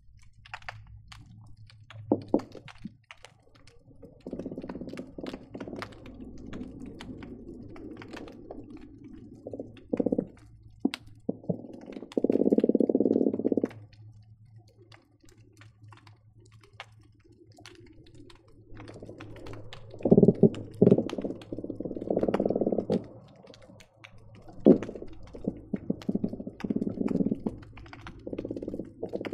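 Croakers calling underwater, picked up by hydrophones: repeated low, buzzy croaks of up to about a second and a half, the loudest near the middle and a busy run of them in the second half. Sharp clicks and pops are scattered throughout.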